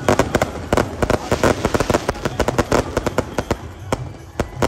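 Firecrackers packed into a burning Ravan effigy going off in a rapid, dense string of bangs that thins out near the end.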